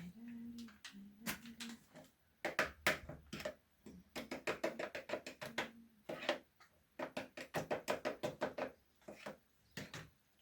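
Rapid runs of light knocks or taps, about eight a second, coming in several bursts with short gaps between them.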